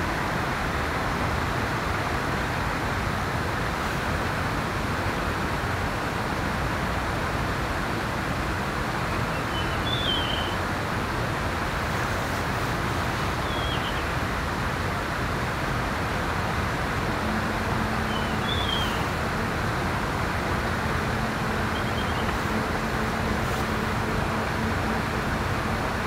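A steady rushing wash of outdoor noise, like surf or a distant road, with four brief high bird chirps a few seconds apart in the middle stretch. A faint low steady hum joins after about two-thirds of the way through.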